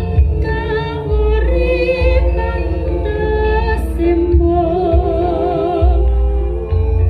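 Music played loud through a carnival sound system: a sung melody with wavering vibrato over heavy, deep bass.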